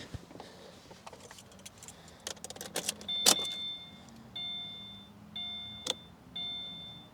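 Keys jangling and clicking, then a car's warning chime sounding a steady tone about once a second, the chime a car gives with the key in the ignition or a door open. Two sharp knocks come during the chime.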